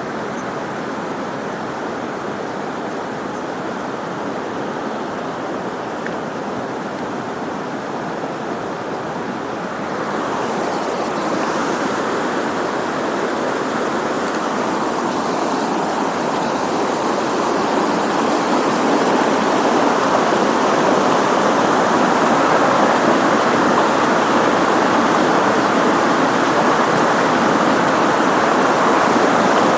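Shallow river riffle: water rushing over stones in a steady wash, growing louder about a third of the way in and again past the middle.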